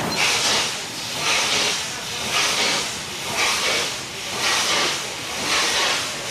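Steam locomotive drifting slowly into a station, steam hissing from its cylinders in regular chuffs about once a second.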